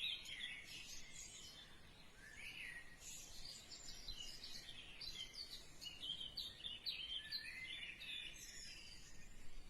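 Faint chirping of small birds: many short, quick calls overlapping, over a low background hiss.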